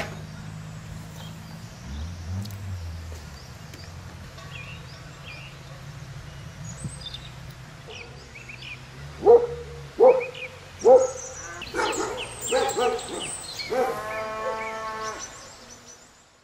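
A farm animal calling: a run of short, loud calls about a second apart, then a longer drawn-out call near the end, with small birds chirping.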